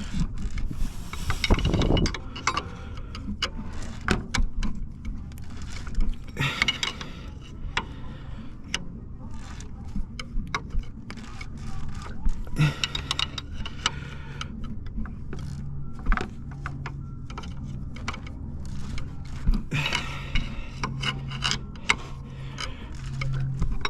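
Irregular clicks, knocks and scrapes of a hand tool on the crankshaft balancer of a BMW E30 325 engine as the engine is turned over by hand counterclockwise, checking where it binds; the engine seizes at one point in its rotation, the fault behind its stall and no-crank.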